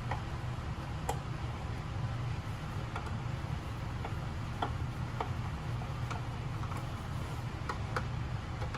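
Scattered light plastic clicks and ticks, about nine at uneven intervals, as the small screw-hole covers are pried off a rear-seat entertainment screen's plastic housing, over a steady low hum.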